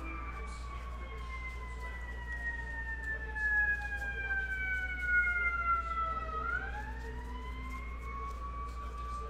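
Emergency vehicle siren wailing: one slow wail that falls in pitch for about six seconds, then rises again.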